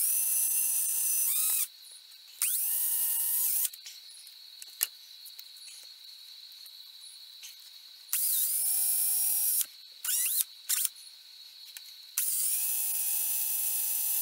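DeWalt cordless drill boring out a broken dowel hole in a wooden chair joint, run in short bursts: four runs of one to three seconds plus a few quick taps of the trigger. Each run spins up to a steady whine and winds down when the trigger is released.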